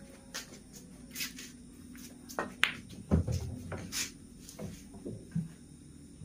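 Sparse clicks of billiard balls and cue: a few sharp separate clicks, with a duller, heavier thump about three seconds in.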